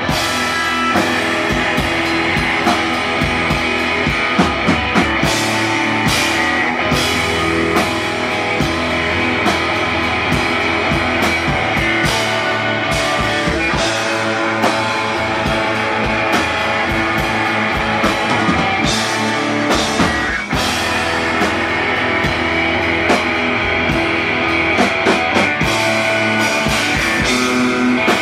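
Rock band playing live: electric guitar over a drum kit, with frequent cymbal crashes, briefly dropping out about twenty seconds in.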